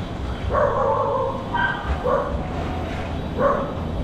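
A dog barking repeatedly, about one bark a second, the first bark longer than the rest.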